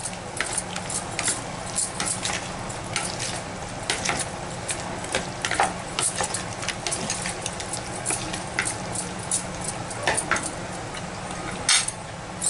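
A spoon stirring marinated chicken pieces in a plastic bowl, with irregular clicks and scrapes of the spoon against the bowl and wet squelching of the coated meat as the spice is mixed in.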